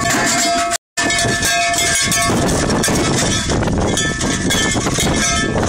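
Continuous metallic jangling and clanking from bells and a bucket tied to a saddled colt as it moves, with a few ringing tones held through the din. The sound cuts out for a split second about a second in.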